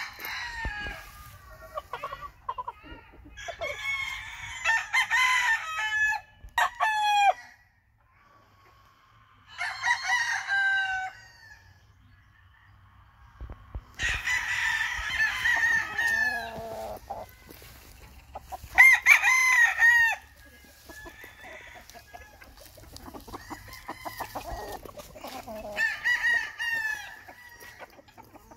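Young gamefowl stag crowing over and over, about six crows with short pauses between them.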